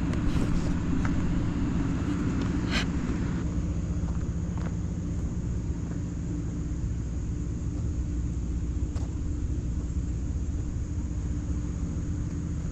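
Steady low engine and road noise of a car driving, heard from inside the car, with a few faint clicks in the first few seconds.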